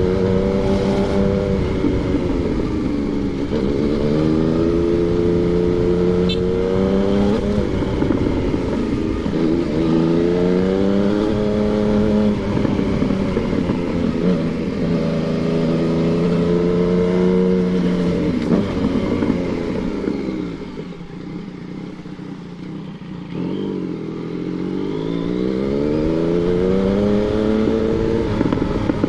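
Yamaha MT-09 inline three-cylinder engine under way, revving up through the gears again and again, with the pitch dropping at each shift. It drops to a quieter, low running for a few seconds past the middle, then pulls up through the revs again.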